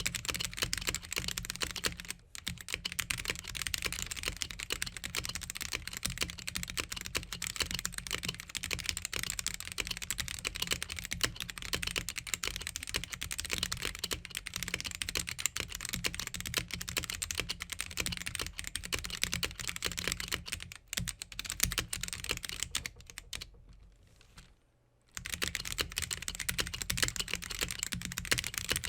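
Continuous fast typing on a Gamakay (Womier) K87 tenkeyless mechanical keyboard with stock Gateron Yellow linear switches and stock stabilizers. There are a few brief pauses, the longest about a second near the end.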